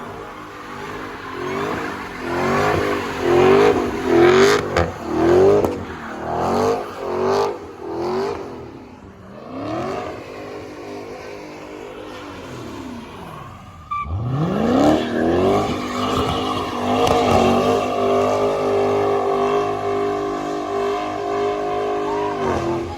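Supercharged car engine revved several times in quick succession, then winding down, then accelerating hard about fourteen seconds in and holding a high, steady pitch, with the supercharger's whine over the engine.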